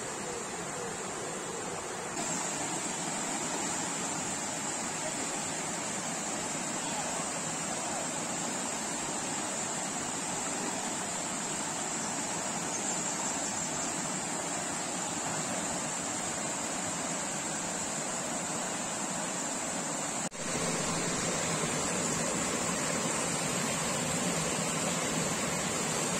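River water cascading over low rock ledges: a steady, even rush. It jumps abruptly louder about two seconds in, and again after a brief drop about twenty seconds in.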